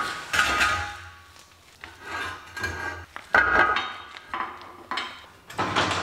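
Background music with a steady beat, over clanks of steel quick-attach mounts and square tubing being set in place by hand.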